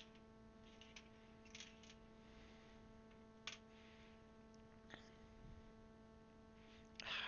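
Faint, scattered plastic clicks of keycaps being handled and pressed onto mechanical keyboard switches, with a louder clatter about seven seconds in, over a steady electrical hum.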